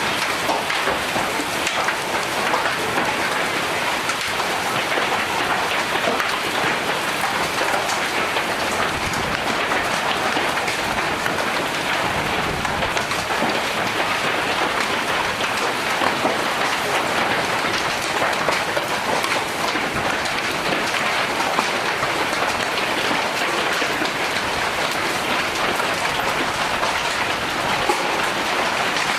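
Hailstorm downpour pelting down steadily: a dense, unbroken patter of countless small hits with no letup.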